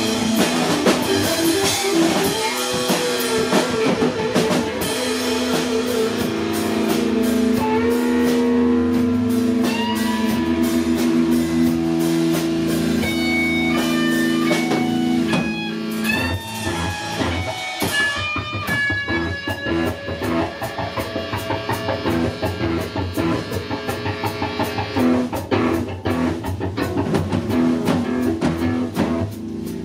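Live rock band playing loudly: electric guitars and a drum kit, with no vocals. Held chords and ringing notes in the first half give way to bending guitar lead notes, then a choppier, evenly pulsing guitar-and-drum rhythm in the second half.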